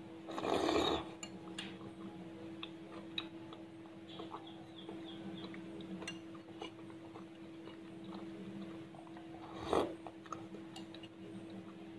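Spoonfuls of pumpkin kolak, a sweet coconut-milk soup, slurped from a metal spoon twice, about half a second in and again near the end. In between come light clinks of the spoon against a ceramic bowl and quiet chewing, over a steady low hum.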